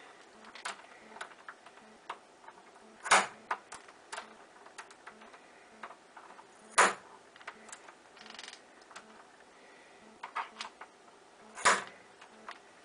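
Bump key in a pin-tumbler deadbolt being struck three times, sharp metallic knocks about four seconds apart, with light clicking of the key being eased back and jiggled between hits. The lock does not open.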